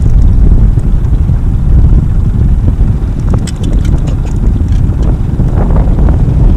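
Wind buffeting the microphone as a loud, steady low rumble, with a short run of faint high ticks about halfway through and rougher, sharper noises coming in near the end.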